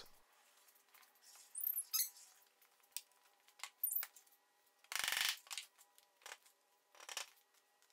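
Light clicks and taps of thin plywood spline strips and glue-up parts being handled on a workbench, with a short scraping rush about five seconds in.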